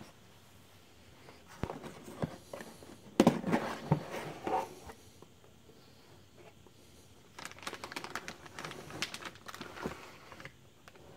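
A cardboard motherboard box being opened by hand: knocks and scrapes of the lid and box, loudest around three to four seconds in. From about seven seconds in comes a run of crinkling as the plastic anti-static bag holding the motherboard is handled.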